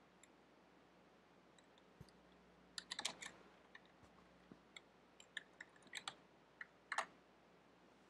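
Computer keyboard keys being typed: a quick run of clicks about three seconds in, then scattered single keystrokes, with a louder key press about seven seconds in.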